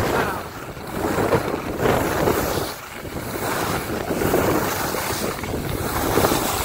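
Wind rushing over the microphone of a skier going fast downhill, with the hiss and scrape of skis on packed snow swelling and fading with each turn.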